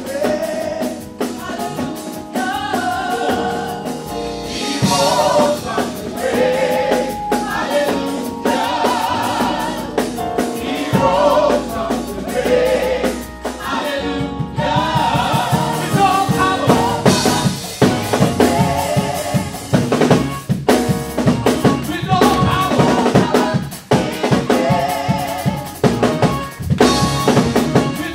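Live gospel music: a lead singer and backing vocalists singing with a drum kit and band. About halfway through, the drums come in with a steady, driving beat.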